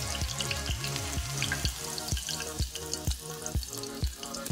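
Background music with a steady beat about twice a second, over hot oil sizzling and crackling in a small saucepan where garnishes are being fried.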